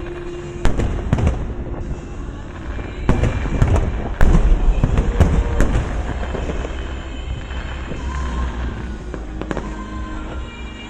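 Fireworks going off in a rapid series of sharp bangs and crackles, thickest and loudest in the middle, over a steady low rumble, with music playing underneath.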